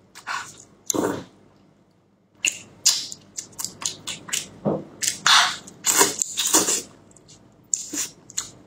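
A person biting and chewing fatty braised meat: an irregular string of short, wet mouth sounds, with a brief lull about two seconds in.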